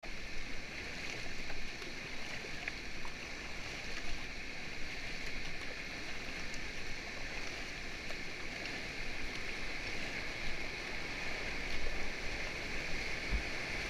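Steady rushing of river rapids heard from a raft drifting towards the whitewater: an even hiss of moving water.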